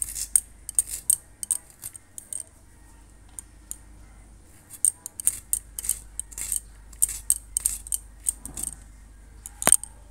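Garlic cloves being cut and trimmed against the blade of a boti, the curved Bengali floor knife: quick, sharp, irregular clicks in small clusters, with one louder snap near the end.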